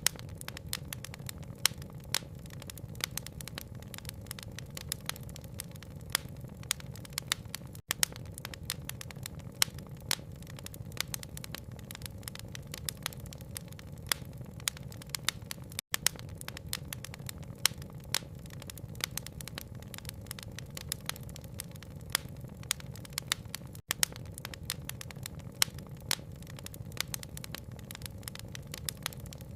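Wood fire crackling, with frequent sharp pops over a steady low rumble. The sound drops out for an instant about every eight seconds where the audio loop restarts.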